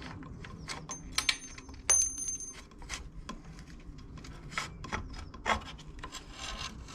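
Bicycle headset parts being handled and taken apart off the fork: scattered light clicks and knocks, with a short metallic ring about two seconds in.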